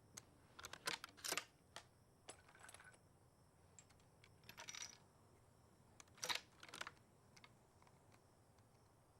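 Quiet metallic clicks and clinks in four short clusters a second or two apart: small metal parts being handled, as in loading and working a gun.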